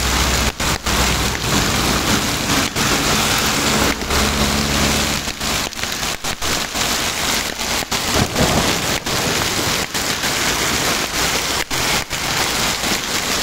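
Heavy hail and rain, with hailstones about 2 cm across, pelting a wet asphalt road in a dense, steady hiss. A passing vehicle's engine hums low underneath during roughly the first five seconds.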